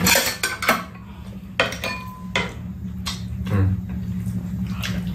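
Spoons and chopsticks clinking and scraping against ceramic bowls at a meal: about seven separate clinks, one ringing briefly about two seconds in, over a low steady hum.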